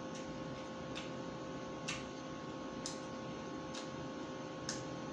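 Sharp clicks about once a second over a steady electrical hum.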